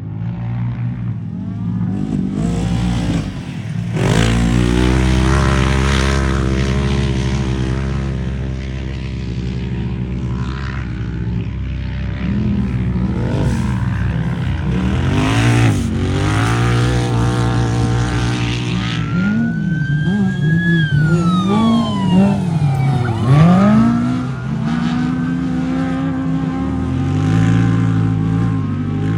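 Off-road race vehicle engines running hard and revving, the pitch repeatedly climbing and dropping. There are louder rushes of noise about four seconds and fifteen seconds in.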